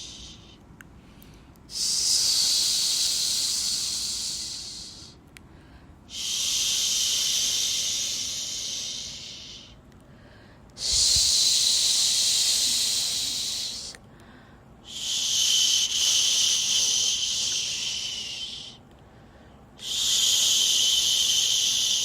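Rhythmic shushing for a baby: a long 'shhh' hiss about five times, each lasting three to four seconds, starting sharply and fading, with a short pause between.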